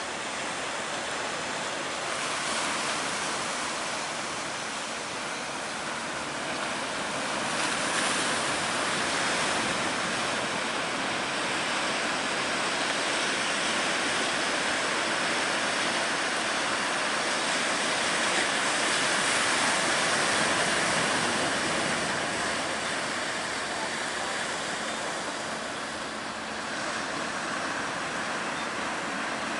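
Big ocean waves breaking: a continuous rush of surf that swells louder several times, most strongly about eight seconds in and again around twenty seconds.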